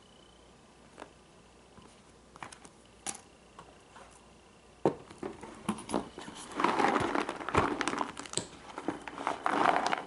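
Puzzle pieces and a cardboard jigsaw puzzle box being handled. First come a few light clicks and taps, then from about five seconds in a louder stretch of crinkling and rustling as the box is picked up and turned over.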